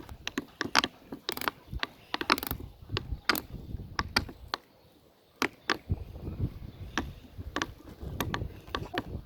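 Irregular sharp clicks and pops from fidget toys being pressed and handled, with a short pause about five seconds in.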